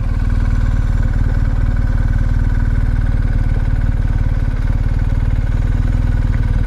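BMW R 1250 GS Adventure's boxer-twin engine idling steadily, an even pulse with no revving.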